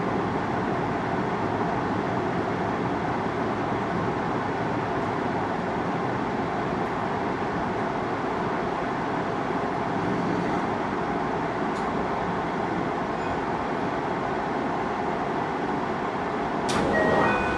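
Cabin noise of a JR Hokkaido 733 series electric train slowing into a station and coming to a stop: a steady rumble of running and braking. Near the end a short hiss is followed by a series of beeping tones.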